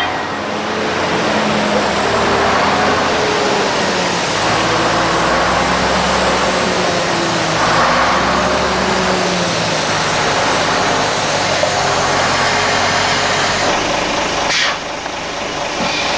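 The engine of a heavy road vehicle running, its pitch rising and falling as it works. It drops away suddenly near the end.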